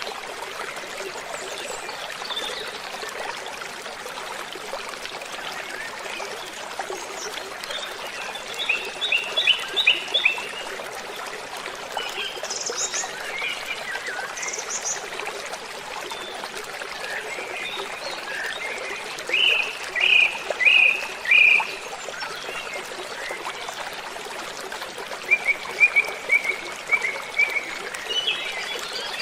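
Waterfall rushing steadily, with birds calling over it in short runs of chirps: a quick series about a third of the way in, four loud notes about two-thirds through, and a string of repeated notes near the end.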